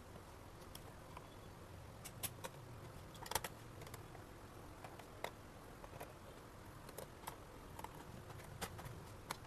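Faint, scattered small clicks and taps, a few in quick pairs, from hands and tools working on a laptop's casing as it is being opened.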